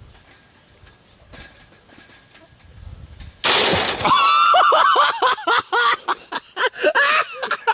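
A quiet stretch, then about three and a half seconds in a sudden loud crash as a person lands hard on concrete after falling from a fence post, followed by loud, repeated vocal cries.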